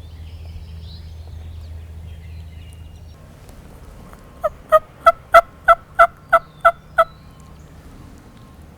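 Turkey yelping: a loud run of about ten evenly spaced yelps, about four a second, starting about four and a half seconds in.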